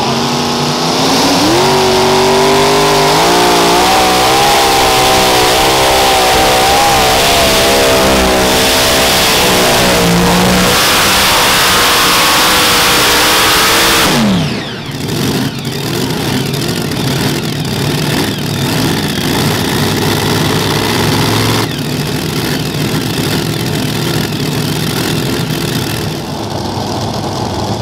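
Modified pulling tractor's multiple supercharged engines revving up and running at full throttle for about fourteen seconds, their pitch wavering slightly under load. Then the revs drop sharply and the engines run on at a lower, rougher level.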